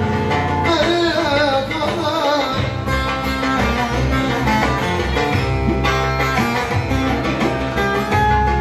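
Turkish folk song played live: a male voice finishes a sung line in the first second or two, then an instrumental interlude follows on the plucked bağlama (saz) with electronic keyboard accompaniment.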